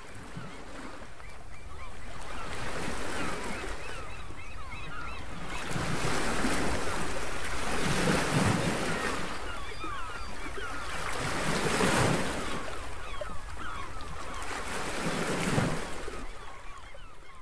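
Ocean surf washing ashore, rising in four slow surges a few seconds apart, with birds calling over it.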